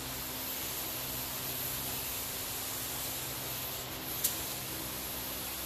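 Compressed air hissing steadily from a gravity-feed paint spray gun. Its fluid flow is turned way down, so it sends out mostly air while misting a light coat of catalyzed urethane base. A brief sharp click comes about four seconds in.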